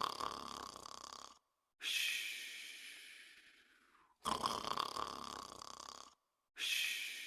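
Snoring while asleep: twice, a rough rasping snore of a second or two, each followed by a longer airy breath that fades away, about one breath every five seconds.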